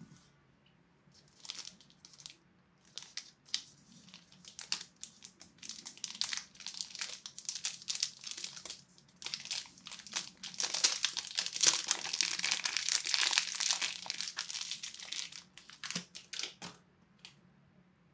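Thin clear plastic bag crinkling as it is unwrapped from a small action camera by hand: scattered crackles at first, then about five seconds of dense, continuous crinkling, dying away near the end.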